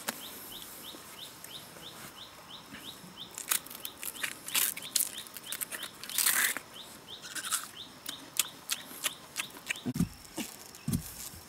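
A bird repeats a short high chirp about three times a second for the first few seconds. Then come sharp crackling snaps as a pale plant stalk is stripped and peeled by hand, and near the end two dull thuds of a wooden digging stick striking soil.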